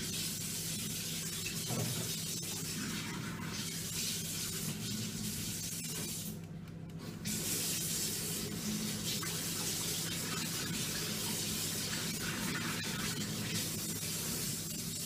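Kitchen tap running into a sink, a steady hiss of water that stops briefly about six and a half seconds in, then runs again.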